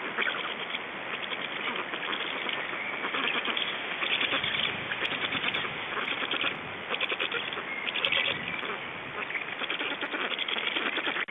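Black stork chicks calling steadily in a rapid, bleating chatter at the nest, the begging calls of young being fed by the adult.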